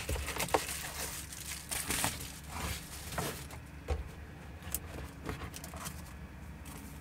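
Plastic packaging crinkling as bagged model-kit parts are handled, with light clicks of small parts, busiest for the first three seconds or so and then quieter with a few separate clicks.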